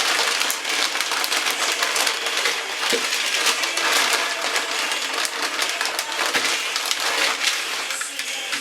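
Dried egg noodles being handled into a bowl: a dense, continuous run of crisp crackles and snaps as the brittle noodles crunch and break.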